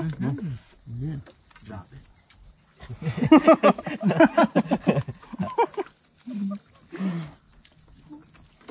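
Insects chirring in a steady, evenly pulsing high drone. Around the middle, people's voices break into short bursts of laughter, the loudest sound here.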